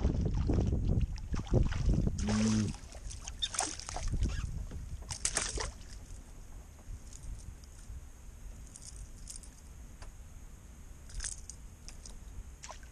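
Knocks and rumbling from movement in a canoe, then several sharp splashes of a hooked fish thrashing at the water's surface.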